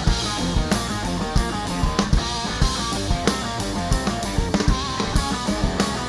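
Live rock band playing instrumental, with a drum kit keeping a steady, driving beat under electric guitars.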